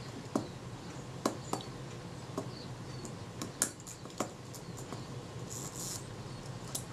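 Steel tweezers clicking and tapping against the small metal levers and springs of a Synchro-Compur leaf shutter as it is worked on by hand: scattered light metallic clicks, about a dozen, with a brief scratchy rustle near the end.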